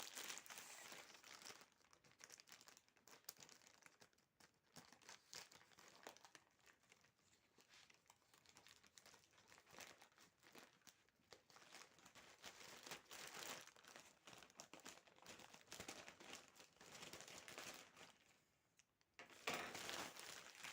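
Quiet, irregular crinkling and rustling of parcel packaging being handled and unwrapped by hand, with small crackles and tearing.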